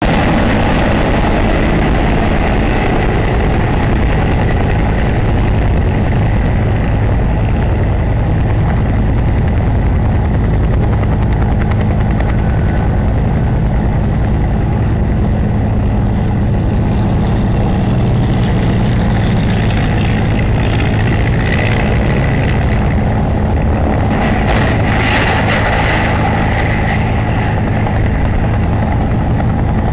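A steady, loud mechanical drone with a low hum and a hiss over it, brightening in the upper range about twenty to twenty-seven seconds in.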